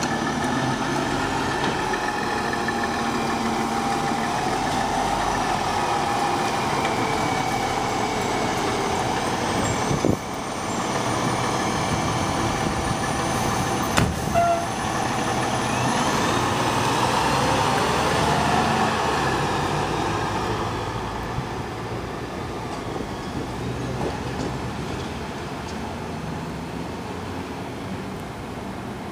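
Fire engine's diesel engine running steadily, with a sharp knock about ten seconds in and another pair about fourteen seconds in. The engine sound grows somewhat quieter over the last several seconds.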